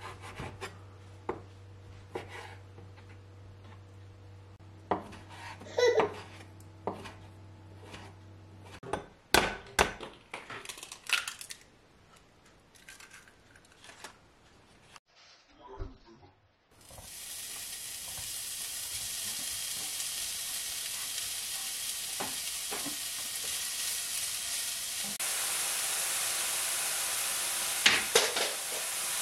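A chef's knife chopping bacon on a wooden cutting board, with scattered sharp knocks and clinks of kitchen work. After a short quiet spell, diced bacon sizzles steadily in a frying pan from a little past halfway, growing slightly louder near the end.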